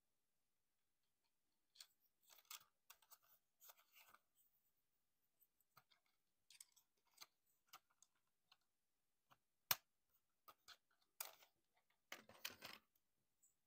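Plastic parts of a Transformers Generations Optimus Prime figure clicking and scraping as it is handled and transformed, in scattered bursts. A sharp snap comes a little under ten seconds in.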